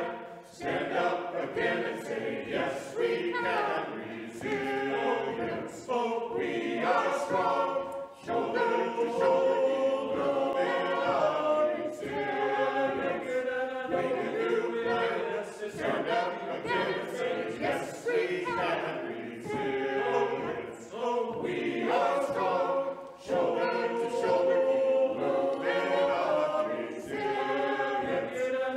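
A choir of voices singing together, with no clear instrumental backing.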